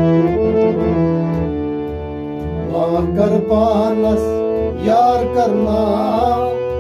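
Harmonium playing a held melody over steady beats on a clay pot drum, about three strikes a second. About three seconds in, a man's voice comes in singing over them.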